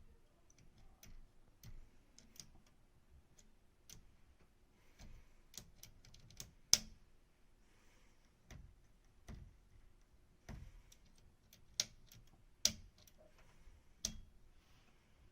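Faint, irregular clicks and light taps at uneven intervals, with a sharp loud click about halfway through and a few more sharp clicks near the end.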